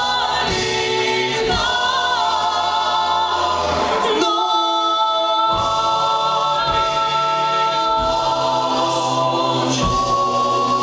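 Large mixed a cappella choir singing live into microphones, holding long sustained chords in close harmony over a low held bass line. The chord shifts about four seconds in and again near the end.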